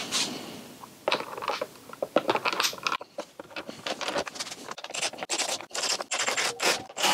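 Clicks of a hand tool on a bolt, then a busy run of scrapes and knocks as a metal grab-handle frame is handled and set onto a motorcycle's aluminium rear rack.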